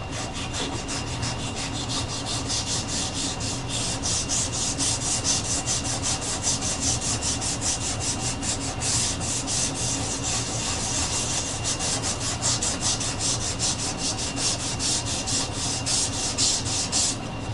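Cotton t-shirt rag wiping leather dye onto a bare wood board in quick back-and-forth strokes, about five a second, a dry rubbing hiss that stops about a second before the end.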